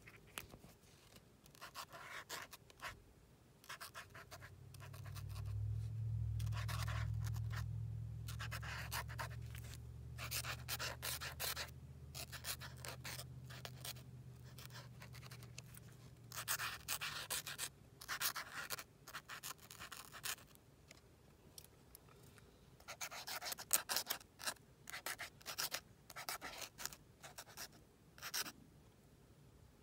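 A paint marker's nib scratching across paper in short bursts of quick strokes. A low steady hum swells in a few seconds in and fades away around two-thirds of the way through.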